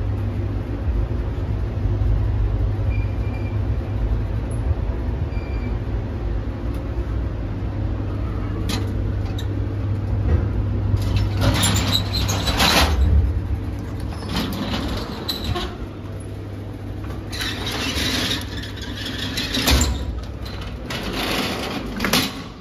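A vehicle on the road with a steady low rumble of engine and road noise. From about halfway there are several loud bursts of hiss, each a second or two long.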